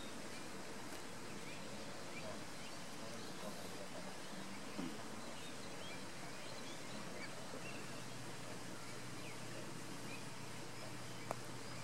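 Steady outdoor background hiss with faint, scattered bird chirps, and a single soft click near the end.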